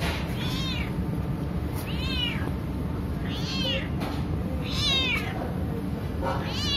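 Domestic cat meowing repeatedly, five meows about a second and a half apart, each rising then falling in pitch, over a steady low background rumble.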